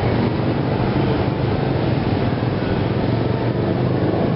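A motor vehicle engine running steadily: a continuous low rumble with a hum under broad noise.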